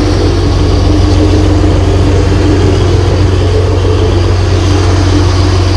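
Diesel engine of a road roller running steadily at a constant speed, a loud low hum.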